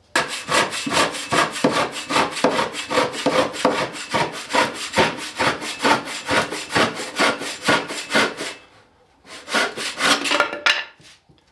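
Hand-made crosscut frame saw cutting across a wooden board in quick, even push-pull strokes, about three a second, with a brief pause about nine seconds in before a few more strokes. The saw's teeth still want another sharpening, though it cuts fairly well.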